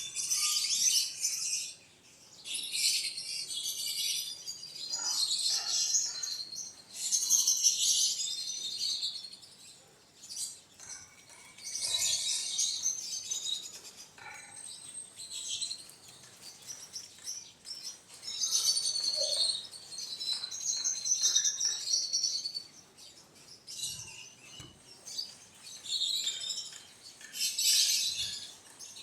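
Birds chirping in repeated bouts of dense, high-pitched chatter, each bout lasting a second or two.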